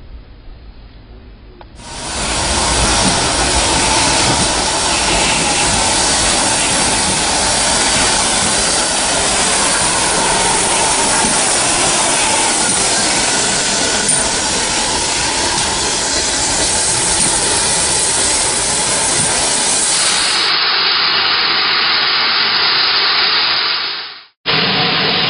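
Steam locomotive hissing steam loudly and steadily as it stands at a platform: GWR tank engine No. 5521. The hiss starts suddenly about two seconds in and breaks off for a moment near the end.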